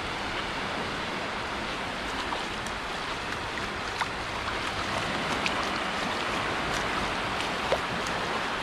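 Sea surf washing steadily on the shore, a continuous rushing with a few faint small clicks over it.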